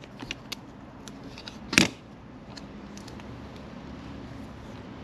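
A metal spatula prying at the glued controller housing of a CYC Photon e-bike motor: a few light clicks and scrapes, then one sharp crack a little under two seconds in, followed by quiet handling.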